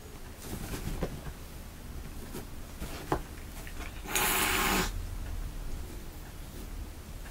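Kitten paws and claws scrabbling on a fabric pop-up cat tunnel, with a few light scrapes and taps and a louder rustle of the fabric about four seconds in that lasts under a second.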